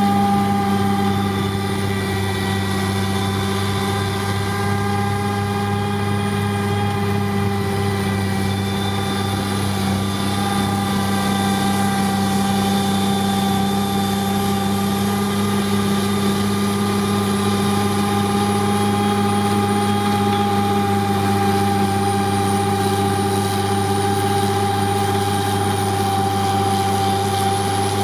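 Heavy machinery engine driving a Contant snowblower attachment on a CAT machine, a loud, steady drone with a faint high whine that slowly wavers, as the spinning auger cuts into a heavy snowbank.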